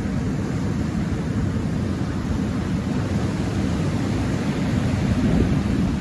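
Sea surf breaking and washing up a pebble beach: a steady low rush of waves, swelling slightly about five seconds in.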